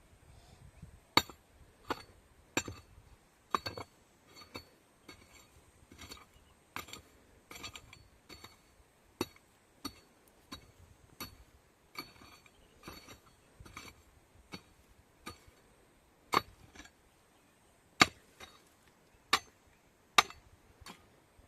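A series of sharp clinking taps or knocks, each with a brief ring, coming at an uneven pace of about one or two a second and spacing out toward the end.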